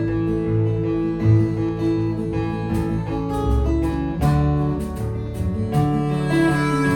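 Acoustic guitar playing a folk song's instrumental introduction, strummed chords over sustained bass notes.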